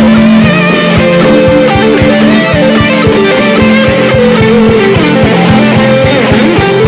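Instrumental worship music, with held melodic lines over a steady beat and no singing.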